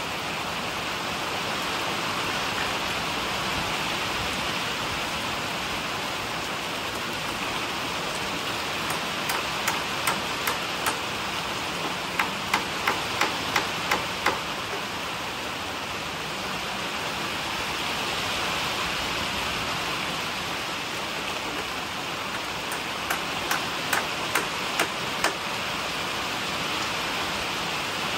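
Steady rain falling, with three runs of sharp knocks at about three a second: two in the middle and one near the end, louder than the rain.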